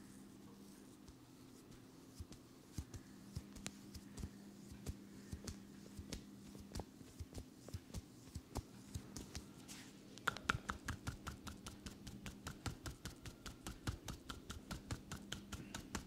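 Hand massage on a man's neck: scattered soft taps and skin sounds as fingers press and work the neck. About ten seconds in, this gives way to a rapid, even run of crisp taps, several a second, from palms held together striking the neck and shoulders in tapping massage.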